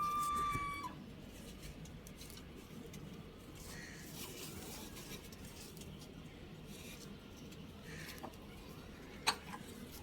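Young rooster's crow ending: a held, steady note that drops off about a second in. After it, a couple of faint short calls and a few sharp clicks near the end.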